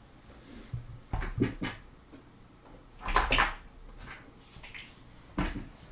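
Plastic fashion dolls being handled and set down on a tabletop: a few light knocks, a louder rustle about three seconds in, and a sharp knock near the end.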